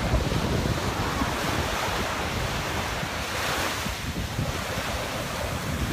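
Ocean surf breaking and washing up the shore, a steady rush that swells near the middle, with wind buffeting the microphone.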